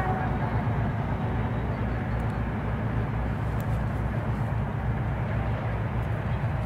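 Diesel train engine running, a steady low rumble with a regular throb.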